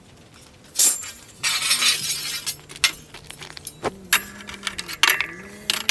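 Steel bar stock clanking and scraping against the steel base and vise of an abrasive cut-off saw as it is handled. There are a few sharp metal clanks, one about a second in and another near four seconds, with scraping in between and more clinks near the end.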